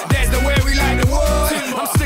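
Dance-pop music with a steady beat, heavy bass and a melody line over it.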